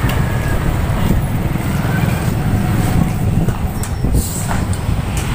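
Small motorcycle engine running steadily while riding, with a low wind rumble on the microphone and a few brief rattles near the end.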